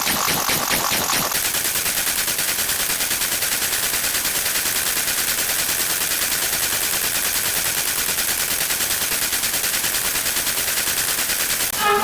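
Machine-gun sound effect: rapid automatic fire in a fast, even stream of shots lasting about ten seconds. Just before the end a horn-like chord cuts in.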